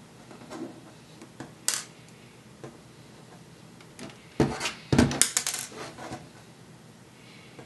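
Sharp clicks and a short cluster of knocks and clatters from small screws and the plastic case of a Dell Latitude 3540 laptop being handled on a hard desk. One single click comes early, and a louder run of knocks comes about four to six seconds in.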